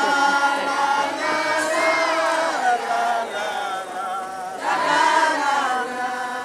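A group of voices chanting together in long, held phrases. A second phrase starts about four and a half seconds in.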